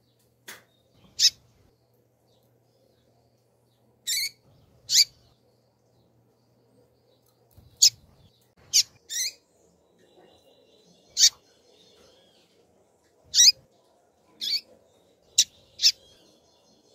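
Female double-collared seedeater (coleiro) calling: about a dozen short, sharp, high peeps, spaced irregularly and sometimes in quick pairs.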